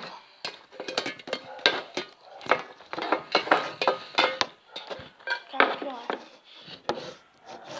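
Irregular clattering and knocking of hard objects being handled and moved about, with a few sharp clicks.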